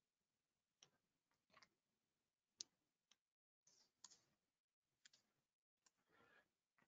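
Faint, irregular clicks of a computer mouse and keyboard, about a dozen, with a short soft rustle near the end; otherwise near silence.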